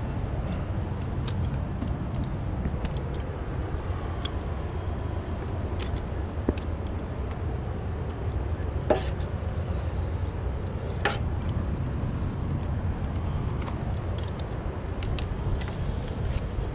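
Steady low rumble of wind and city traffic heard from high up a building. It is broken by scattered sharp clicks and taps, the strongest about nine and eleven seconds in.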